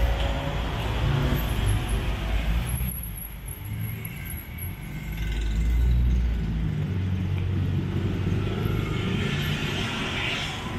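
City street traffic: cars and motorbikes running on the road below, a low rumble that dips a few seconds in and swells again about six seconds in.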